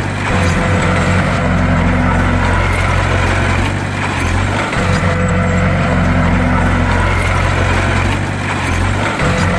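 Bulldozer's heavy diesel engine running steadily under load, its low drone dipping briefly about halfway through and again near the end.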